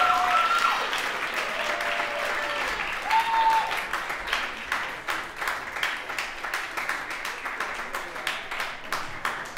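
Audience applauding, the clapping fading and thinning out into separate claps toward the end.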